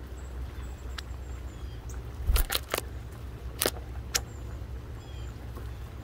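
Sharp taps and clicks of a female northern cardinal pecking and cracking seeds on a wooden board: a quick cluster about two seconds in, then single taps. Underneath is a steady low rumble and faint, thin high bird calls.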